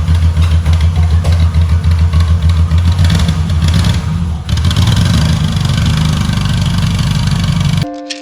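1984 Leyland Tiger coach's diesel engine running loudly with a pulsing beat; music starts near the end.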